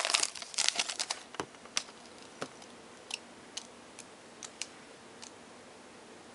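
Foil trading-card pack wrapper crinkling as it is torn open, dying away within about the first second. After that come a handful of light, scattered clicks as the cards are handled.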